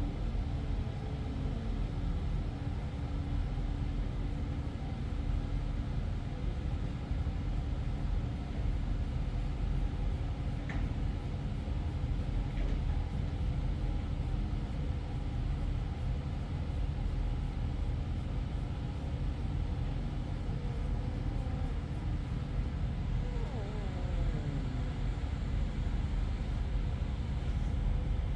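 Steady low rumble of a large engine running, as from tree-removal machinery, with its pitch sliding down briefly near the end.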